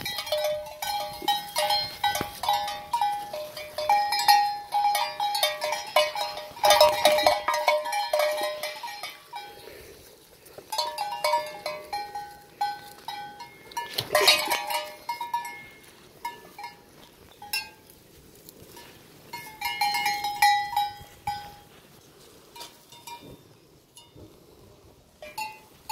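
A metal bell (cencerro) on a sheep clanking in irregular bursts as the animal moves, with short pauses between bursts; it thins out and grows quieter over the last few seconds.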